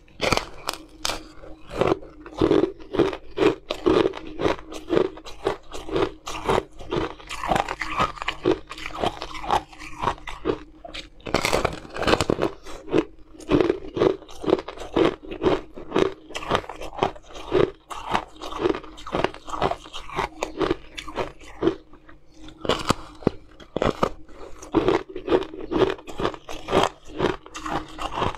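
Crunching of ice being bitten and chewed: a thin sheet of frozen blue-tinted ice snapping in the teeth, with many sharp cracks in quick succession.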